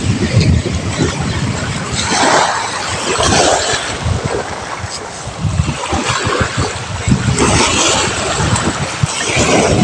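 Wind buffeting the microphone in irregular low gusts, over the wash of surf swelling and fading on the shore.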